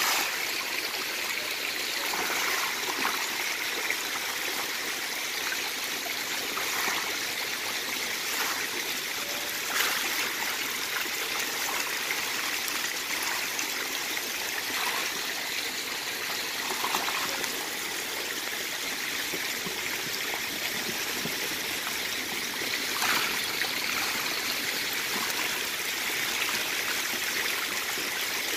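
Steady rush and splash of water in a shallow concrete tank crowded with desi magur catfish: a pipe pouring water in and the fish churning the surface as feed is scattered among them. A few slightly louder splashes stand out.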